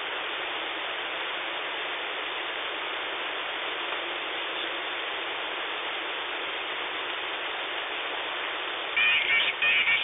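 Steady hiss of band noise from a shortwave receiver in upper-sideband mode, tuned near 27.44 MHz on the 11-metre CB band. About nine seconds in, a louder, choppy signal with high tones breaks in as the receiver is retuned.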